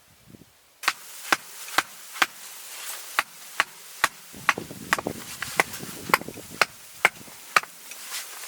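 Repeated chopping with a blade, sharp strikes about two a second, starting about a second in after a quiet moment.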